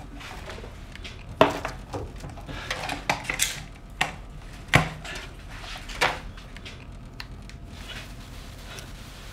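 Hard objects being handled and knocked together: a run of about eight irregular clinks and knocks over the first six seconds, then quieter.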